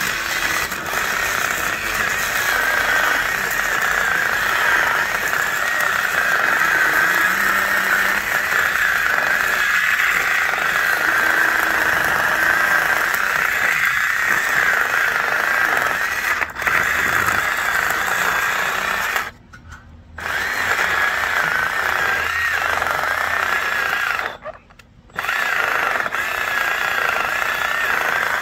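Milwaukee 12-volt cordless chainsaw with a freshly hand-sharpened chain, cutting through a log with a steady high whine. It stops twice for under a second in the last third, then cuts on.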